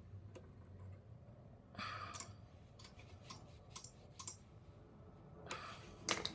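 Light, scattered clicks and short handling noises of small parts being fitted by hand while a small-engine carburetor is reassembled, with a couple of slightly louder rustles about two seconds in and near the end.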